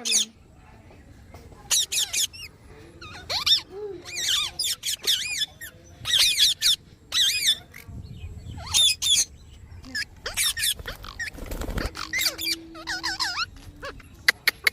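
Parrot screeching in short bursts of shrill, wavering calls, one every second or two.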